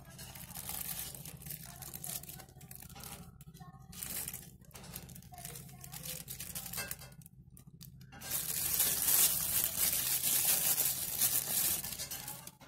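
Clear plastic wrapping crinkling and rustling as a wristwatch is handled and pulled out of it, in short scattered bursts at first, then a louder, continuous stretch of crinkling for the last four seconds or so.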